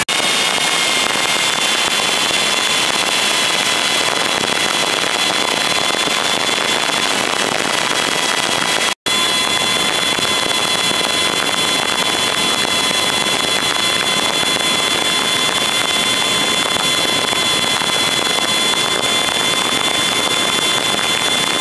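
Yamaha outboard motor running at high speed with a steady high whine, nearly buried under loud rushing wind and spray noise on the microphone. The sound cuts out for an instant about nine seconds in.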